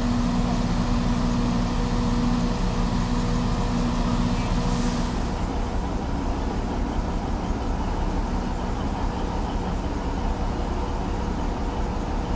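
Diesel locomotive DL-51 of the Alishan Forest Railway idling: a steady low engine hum with a humming tone that fades about five seconds in, leaving a rougher low rumble.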